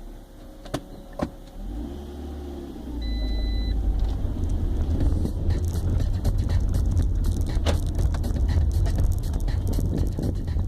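A car, with a few sharp clicks early on and a short high beep about three seconds in; from then on a loud, steady low engine rumble runs on.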